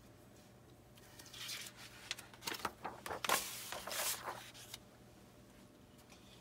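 Paper rustling in a series of short scrapes and crinkles, about one to five seconds in: a picture-book page being handled and turned.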